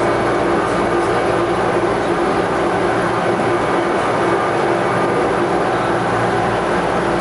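OrlyVal rubber-tyred automated light-metro car (VAL 206) running at steady speed along its concrete guideway, heard from inside the car: a steady rolling noise with a constant low hum.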